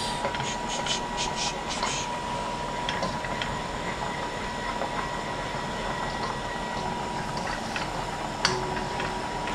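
Metal spatula scraping and stirring a sauce in a frying pan, several quick scrapes in the first two seconds and a single tap near the end, over a steady hum and hiss with a faint constant whine.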